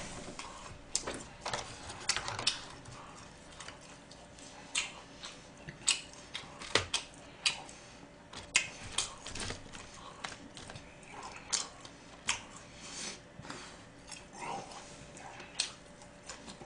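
A person eating with chopsticks: irregular short smacks and clicks of chewing, with chopsticks picking at dishes.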